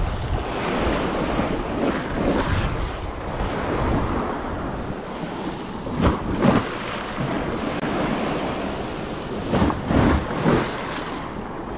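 Sea surf washing on a beach, with wind buffeting the microphone and a few louder gusts about halfway through and again near the end.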